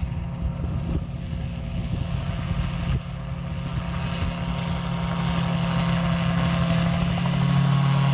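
AutoGyro MTO Sport gyroplane taking off, its engine and pusher propeller running at takeoff power with a steady drone and a fast pulsing beat, growing louder as it comes closer.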